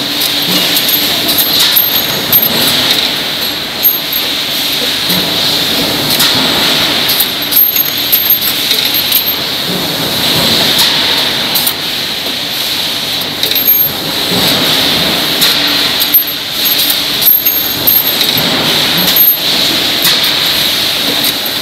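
Industrial machine with an automatic job-feeding system running, small metal parts clinking and rattling as they are fed, with frequent irregular clicks over a steady mechanical hum.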